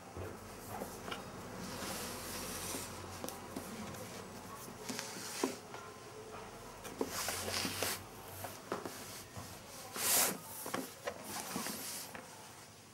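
Hands handling a cardboard MacBook Pro retail box, sliding and rubbing it over a fabric bedspread with a run of rustling swishes and small clicks. The loudest swish comes about ten seconds in.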